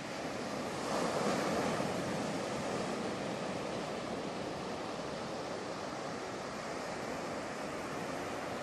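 Ocean surf breaking and washing over rocks: a steady rushing wash that swells about a second in, then settles.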